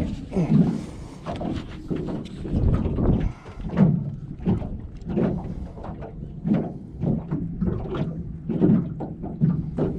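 Small waves slapping irregularly against the hull of a drifting jon boat, with wind rumbling on the microphone.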